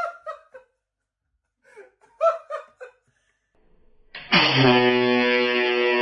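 Short bursts of laughter, then about four seconds in a handheld air horn sets off a loud, steady blare that is still sounding at the end.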